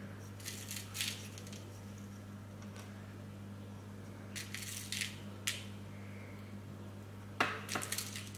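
Small amethyst crystal chips clicking and clinking against each other and the wire as they are handled and threaded onto thin craft wire, in a few short groups. The loudest clatter comes near the end, as fingers pick chips from a plastic compartment box. A steady low hum runs underneath.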